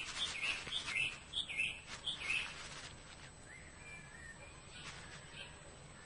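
Bird chirping: about seven short, high calls in quick succession over the first two and a half seconds, then a few fainter calls over quiet outdoor background.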